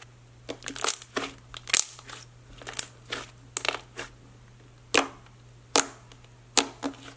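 Thick clay slime being kneaded and poked by hand: a string of sharp, wet pops and squelches at irregular intervals.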